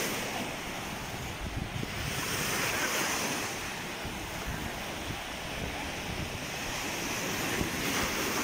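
Sea waves washing in on the shore, swelling and easing, with wind buffeting the microphone.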